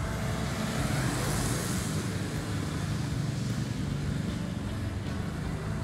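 Road traffic noise: a steady rumble of cars on a city street, with a louder swell about a second in as a vehicle passes.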